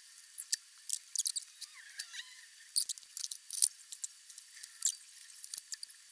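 Irregular sharp, high-pitched crackles and ticks from soldering, the iron working a joint on the cassette deck's circuit board.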